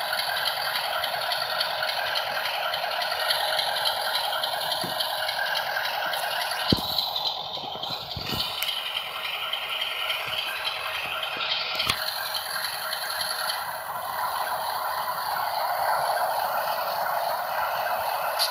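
Model BNSF diesel locomotive running slowly along the layout's track: a steady rattling, scraping whir, with a few sharp clicks near the middle.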